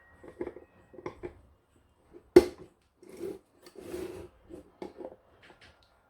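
Irregular knocks and clatter of small hard objects being handled and set down, with one sharp, loud click about two and a half seconds in.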